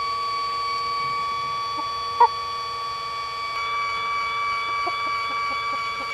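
A steady high whine of several fixed pitches, with a single short chicken cluck from inside the coop about two seconds in and a few faint soft clucks near the end.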